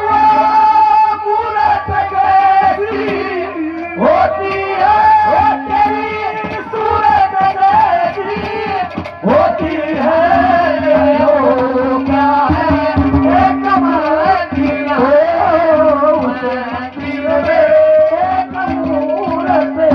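Live Haryanvi ragni folk music: a melody line winds and bends in ornamented phrases over drum strokes, with a lower note held in stretches.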